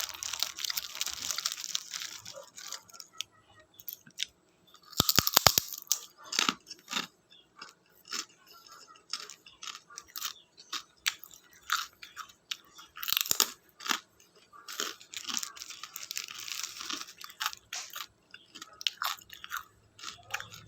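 Crunchy chicharon (fried pork rinds) being bitten and chewed close to the microphone: a run of crisp crackling crunches with louder bursts at the bites, about 5 seconds in and again near 13 seconds.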